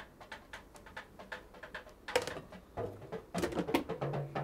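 Light, irregular clicks and taps of a plastic colander and spaghetti against a stainless steel pot as the strained pasta is tipped back in. Louder knocks and clatter follow from about two seconds in.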